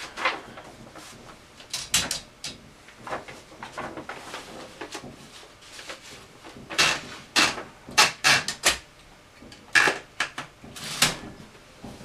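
Sheet of paper being loaded into a 1964 Olympia SM-9 manual typewriter: the paper rustles as it is handled, with irregular clicks and clunks from the platen and carriage as the sheet is fed in and set. The clicks come in clusters, heaviest in the second half.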